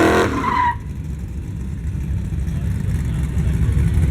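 Low, rough rumble of drag-racing car engines, growing slowly louder, after a higher pitched sound cuts off sharply under a second in.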